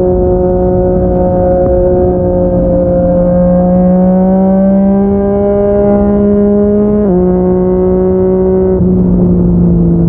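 Yamaha MT-09's inline-three engine through a Yoshimura R55 slip-on exhaust, pulling under steady throttle with the revs climbing gradually. About seven seconds in the pitch drops sharply on an upshift, and the engine carries on at the lower note.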